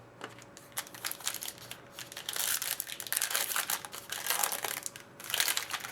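Plastic and foil wrapping of a trading-card pack crinkling and crackling as it is torn open and handled, in irregular rustling spells that are heaviest in the middle.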